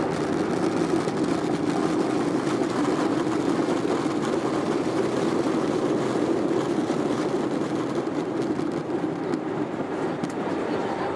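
Cabin noise of an Airbus A320-200 on its landing rollout: the steady rush of the CFM engines in reverse thrust, with the rumble and rattle of the airframe rolling over the runway. It eases off a little toward the end as the jet slows.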